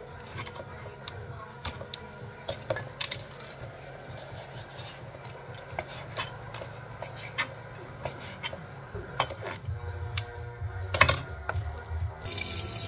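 Kitchen knife slicing raw chicken breast on a plastic cutting board: irregular clicks and taps of the blade striking the board. Just after 12 s a kitchen tap turns on and water runs steadily into a stainless steel sink.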